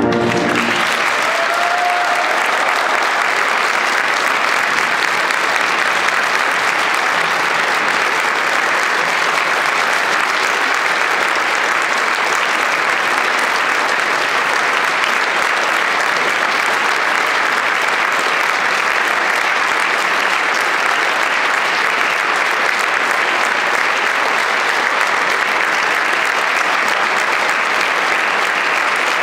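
A large audience applauding steadily, starting just as the band's final chord cuts off.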